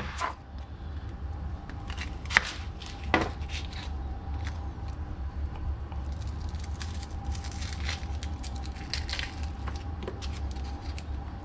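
Cookware being handled: a few sharp knocks of a pot and utensils, then light crackling over a steady low rumble.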